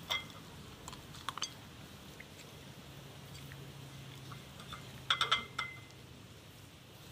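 A German Shepherd eating from her food bowl: scattered crunching and clicks, with the bowl clinking and ringing briefly near the start and in a cluster about five seconds in. A faint steady hum sits underneath from about three seconds in.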